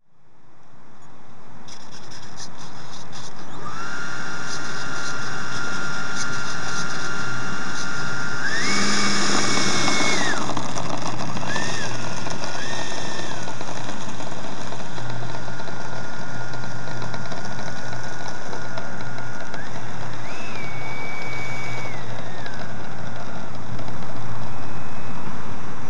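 Electric ducted fan of a 90 mm RC jet (11-blade fan driven by a 1500 kV inrunner motor) whining at low throttle while the model taxis, over a steady hiss. The sound fades in over the first couple of seconds, and the whine steps up in pitch briefly about nine seconds in and again past twenty seconds as the throttle is bumped.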